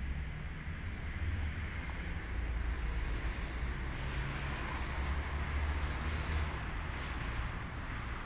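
Steady outdoor background noise: a low rumble with a hiss over it, with no distinct events.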